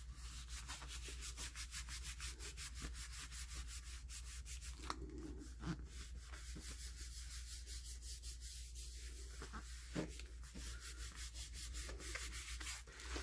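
Quick, even back-and-forth rubbing strokes on glued paper or cardstock as it is worked down onto a journal cover, with a couple of brief pauses.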